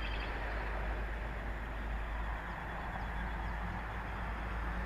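Steady wind rumble on the microphone over outdoor hiss, with a few faint bird chirps.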